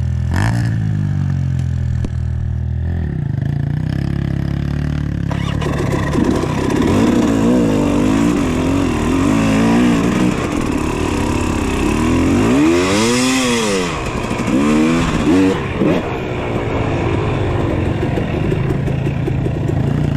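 Dirt bike engine idling steadily for the first few seconds, then riding off with the revs rising and falling again and again, with sharp rev swells past the middle.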